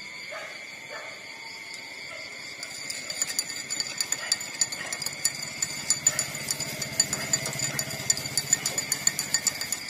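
Newborn puppies suckling at their mother's teats: a fast run of wet sucking clicks, about five a second, starting about three seconds in.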